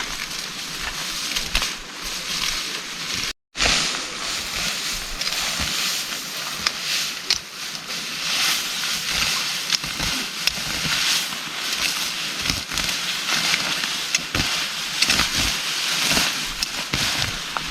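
Heavy rain pouring down as a steady hiss with dense patter. It cuts out completely for a moment about three and a half seconds in.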